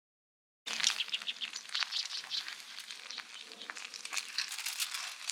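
Food sizzling in a hot pan, a dense run of small crackles and pops that starts abruptly just under a second in.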